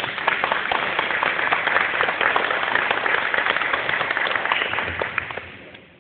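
Audience applauding, a dense patter of many hands clapping that fades out about five and a half seconds in.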